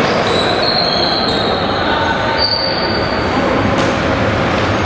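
Players' shoes squeaking on the sports-hall floor during a tchoukball rally: several high, thin squeals over steady hall noise.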